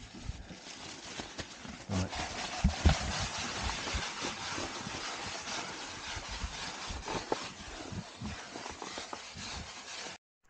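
Close rubbing and scraping of hands, tissue and a spanner working at the car's underside over a mat on gravel, with several dull knocks about two to three seconds in.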